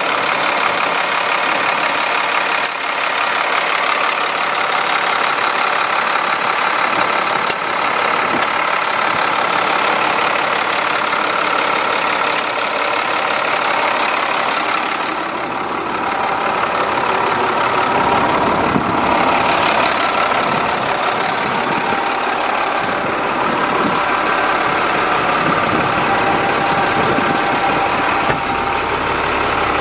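The 2001 GMC C7500 truck's engine idling steadily, heard close up in the open engine bay.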